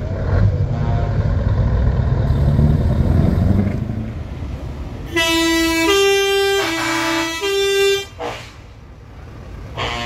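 Scania 143M 500's V8 diesel pulling away, its low engine note rising in pitch, then a truck air horn sounding four alternating notes, low-high-low-high, over about three seconds.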